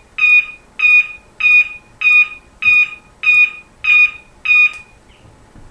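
Automotive beeper, powered by two 6-volt batteries, sounding a rhythm of short high-pitched beeps at about three every two seconds, then stopping shortly before the end.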